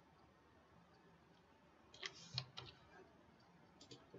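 Near silence, broken by a few faint computer mouse clicks about two seconds in and again near the end.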